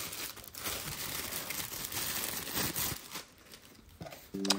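Thin plastic bag crinkling as it is pulled off a portable espresso maker, an irregular rustle that dies away about three seconds in.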